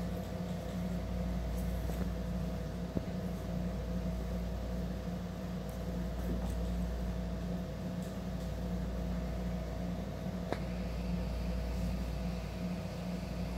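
A steady mechanical hum with a low rumble, the running noise of a fan or similar appliance, with a couple of faint clicks about three seconds in and near ten seconds.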